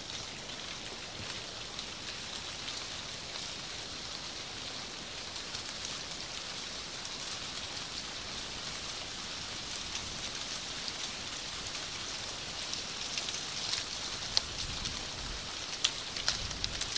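Dry autumn leaves rustling and pattering down through bare branches, a steady fine hiss. A few sharp ticks late on, the loudest about fourteen seconds in.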